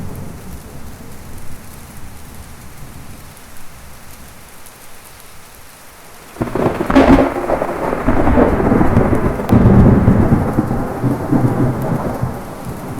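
Steady rain falling in a thunderstorm, then a sudden thunderclap a little past halfway: a sharp crack followed by loud rumbling for several seconds that eases off near the end.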